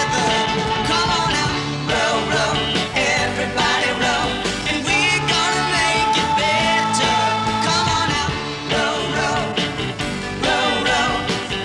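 Bubblegum pop music with a steady beat.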